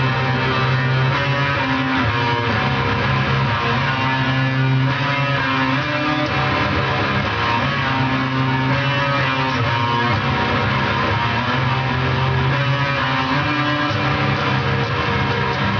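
Loud, doomy electric guitar music: long sustained notes and chords that shift slowly, with no break.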